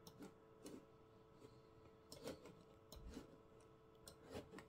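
Quiet, steady hum of the open desktop PC's cooling fan, with scattered soft clicks from the mouse as windows are opened on screen.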